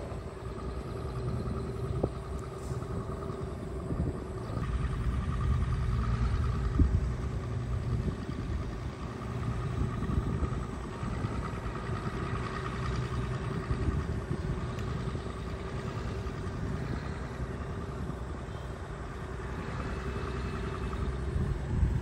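Small crawler bulldozer's diesel engine running steadily under load as it pushes soil, with a few short knocks.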